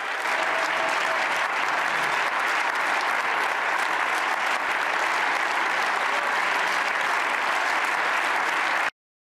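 A large crowd of hundreds applauding: dense, steady clapping that cuts off suddenly near the end.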